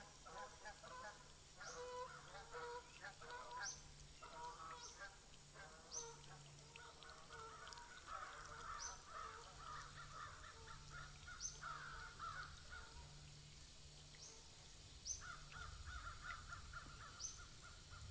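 Faint bird calls: a short high chirp repeated about every two seconds over bouts of rapid chattering calls, which pause for a moment about 13 seconds in.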